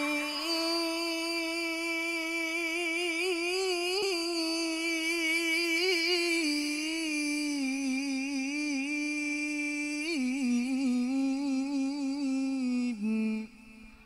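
Young male qari reciting the Quran in the melodic tilawah style: one long, drawn-out ornamented phrase of about thirteen seconds, the pitch wavering up and down in melismatic turns, breaking off about a second before the end.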